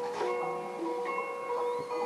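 Background music with long held notes, and one soft knife stroke against a bamboo cutting board at the very start.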